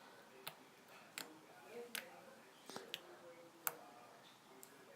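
Homemade slime being squeezed and worked in the hands, giving off sharp little pops and clicks as air pockets burst, about seven at uneven intervals.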